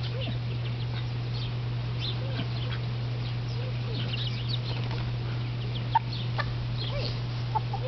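Silkie hen clucking softly, with many thin high chirps over a steady low hum, and a single knock about six seconds in.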